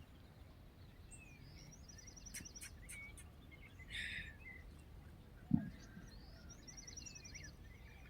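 Quiet outdoor farm ambience with birds calling: scattered chirps and a rapid high trill heard twice. A brief soft rustle comes about four seconds in, and a single low thump about five and a half seconds in.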